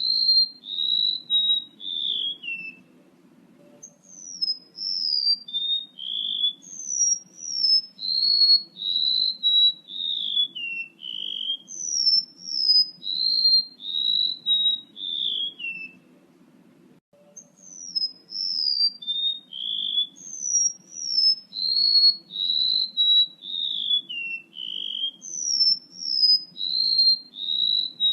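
Song of a male rementuk laut bird played as a lure call: clear whistled notes stepping down in pitch in quick repeated phrases, pausing briefly twice, over a faint low hum.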